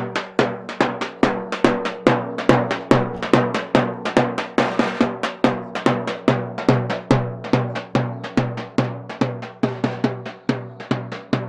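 Drums beating a fast, steady dance rhythm of dense, evenly spaced strokes, with a deep ringing low stroke.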